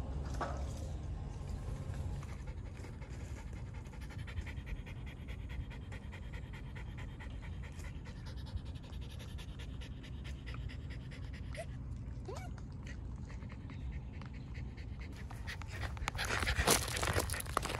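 Shiba Inu panting quickly and steadily with its mouth open. A louder burst of rustling noise comes near the end.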